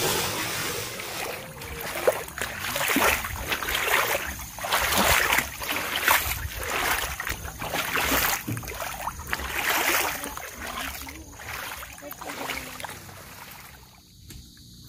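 Rainwater gushing into a tarpaulin-lined pit, then sloshing and splashing in repeated swells as the water is mixed by hand to dilute the vermicast, fading near the end.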